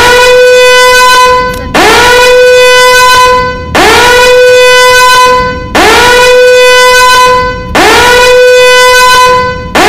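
A loud, buzzy horn-like tone edited over the audio to cover speech. It plays as about five long notes, one every two seconds, and each note slides up in pitch at its start and then holds on one pitch.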